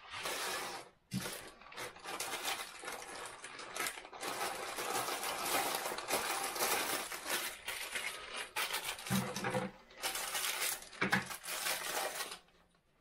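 Crinkling and rustling of the plastic wrapping around first-aid bandages as they are handled and packed, an irregular crackle with brief pauses that dies away near the end.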